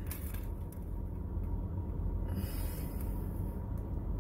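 Steady low rumble of a car idling, heard from inside the cabin, with a short hiss lasting about a second starting a little past the middle.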